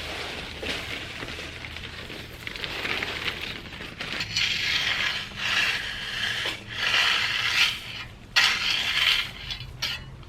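Irregular scraping, rattling and clicking, with several sharp clicks in the second half.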